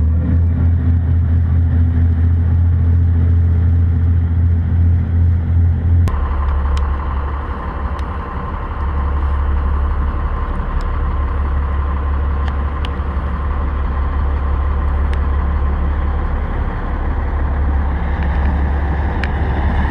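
Motor launch's engines running close by as it pulls away from the dock, a steady low drone. About six seconds in the sound changes abruptly to a different steady low engine drone with a hum above it.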